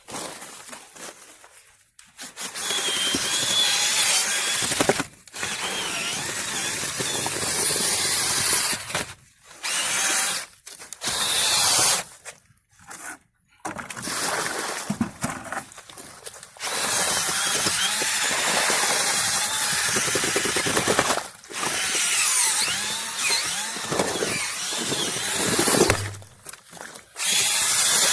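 A handheld power tool run in repeated bursts of one to four seconds, starting and stopping about eight times.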